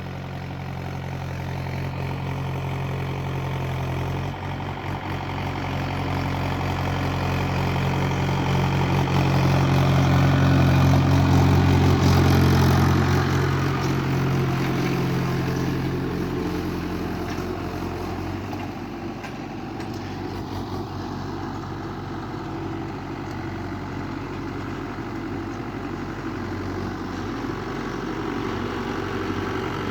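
Mahindra 475 DI tractor's four-cylinder diesel engine running steadily while pulling a cultivator through soil. It grows louder toward the middle, then fades and settles to a steadier, quieter drone.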